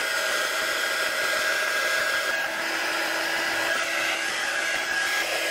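Heat gun blowing steadily to shrink heat-shrink tubing over a drone ESC, with a motor whine running through the hiss.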